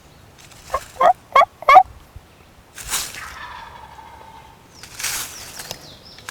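Wild turkey gobble: a quick series of about four loud, warbling notes, followed by two softer, breathy sounds about three and five seconds in.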